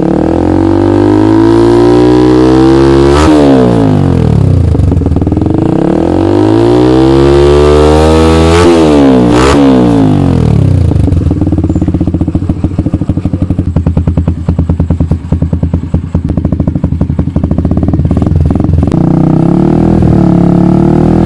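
Kawasaki Rouser 135 single-cylinder four-stroke engine breathing through a NOB1 NeoSS aftermarket muffler, revved up and let back down twice, then settling to a steady idle for the second half.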